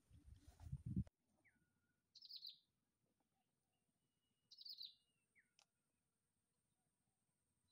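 A low rumble, the loudest thing here, cuts off abruptly about a second in; after it, faint bird chirps come in two short bursts, with a few thin whistled notes in between.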